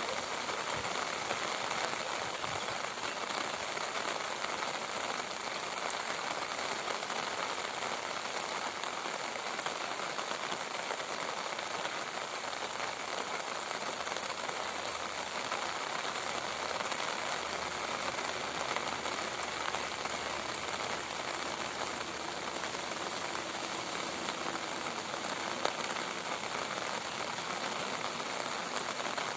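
Steady rain falling and pattering on surfaces: a dense, even hiss of many drops that keeps up without let-up.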